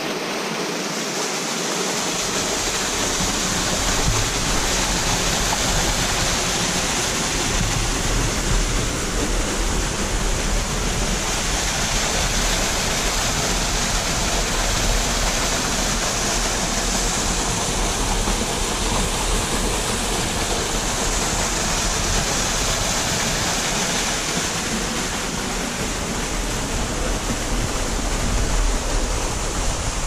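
Narrow waterfall splashing down a rock face into a shallow rocky pool: a steady, even rush of falling water.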